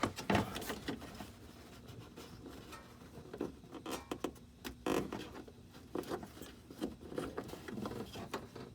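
Hands working up under a car's front bumper toward the turn signal bulb socket: irregular light knocks, taps and rubbing against the bumper and trim.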